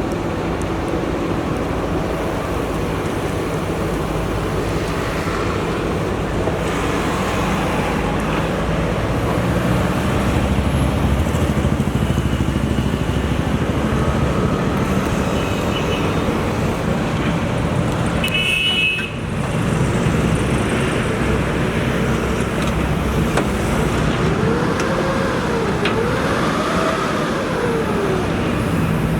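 JCB 3DX backhoe loader's diesel engine running steadily under work. Near the end the pitch rises and falls twice, as if revved for a hydraulic move.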